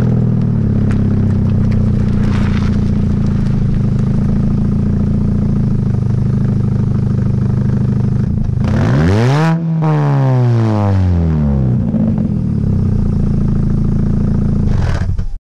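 R50 Mini Cooper's 1.6-litre four-cylinder idling through a straight pipe that replaces the muffler, heard right at the exhaust tip. About nine seconds in it is revved once, the pitch rising sharply and falling back to idle.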